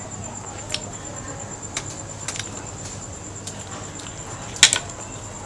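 A cricket trilling steadily in the background, with a few scattered sharp clicks; the loudest is a quick double click near the end.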